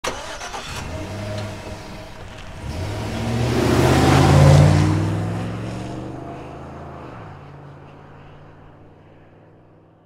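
Intro sound effect: a pitched, engine-like rumble that swells and rises to a peak about four and a half seconds in, then slowly fades out.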